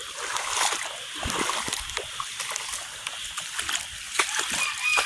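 Footsteps wading through standing floodwater, with repeated splashing and sloshing as the legs push through it.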